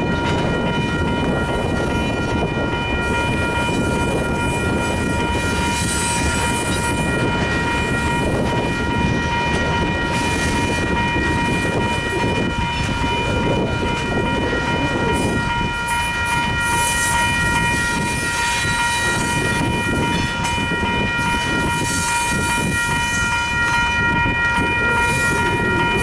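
Long freight train of covered hopper cars rolling steadily past, wheels rumbling on the rails, with a steady high-pitched tone of several pitches held over it.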